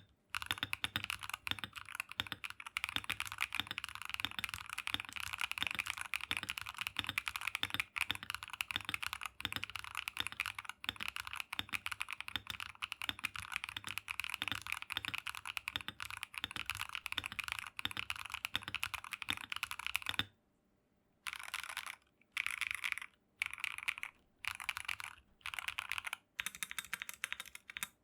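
Typing on an Akko PC75B mechanical keyboard with Akko Cream Yellow Pro linear switches: fast, continuous keystrokes for about twenty seconds, then short runs of key presses separated by brief pauses.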